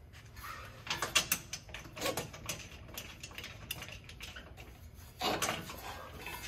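Metal clinks, knocks and light scraping as an MBRP DPF-back exhaust pipe is handled and worked into position against its hanger, in clusters about a second in, around two seconds in and near the end.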